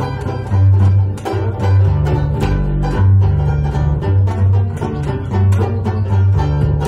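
Live acoustic jazz: a plucked double bass plays a line of strong, separate low notes, the loudest part, over rhythmic strummed banjo chords.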